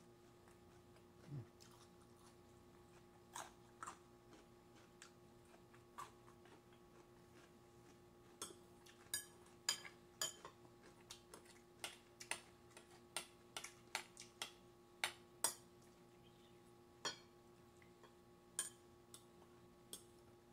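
Metal spoon clinking and scraping against a small ceramic rice bowl as the last grains of rice are scooped out. The clinks are sharp and separate, a few scattered ones at first, then one or two a second over the second half, over a faint steady hum.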